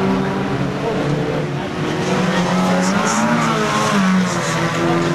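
Several banger racing car engines running and revving on the track, a steady drone of more than one engine, with pitches rising and falling around three to four seconds in.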